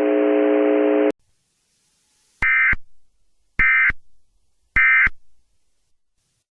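Emergency Alert System end-of-message data tones: three short warbling bursts of modem-like tones about 1.2 s apart, signalling the end of the alert. Just before them, a steady low chord of tones over hiss cuts off abruptly about a second in.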